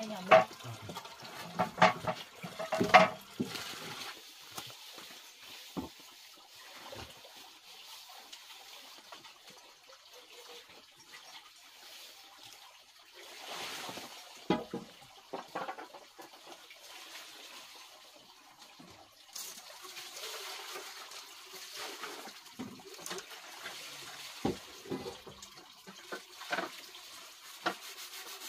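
Water being poured and splashing onto a bamboo slat floor, with a few loud knocks in the first few seconds. After that come quieter scattered knocks and rustles of wood and bamboo sticks being handled at a wood fire.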